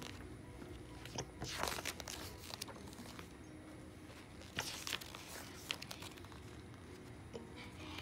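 Short bursts of paper-like rustling and crinkling, twice (about one and a half and four and a half seconds in), with a few light clicks, over quiet room tone.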